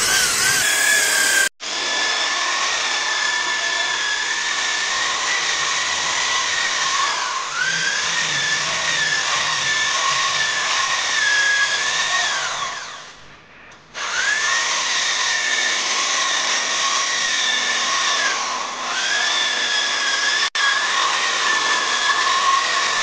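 Handheld electric drill spinning a round scrubbing brush against foamed sofa fabric, a steady motor whine that sags in pitch under load and picks back up several times. About 13 seconds in it is let off and winds down, then speeds back up a second later.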